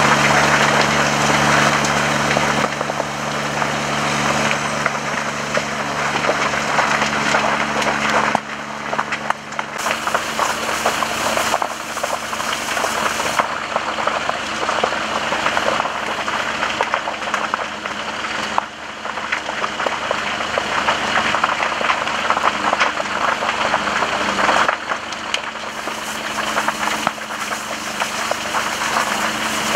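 Fire engine running steadily with a low hum, under a loud rushing hiss from tall brush burning close by. The sound changes abruptly several times.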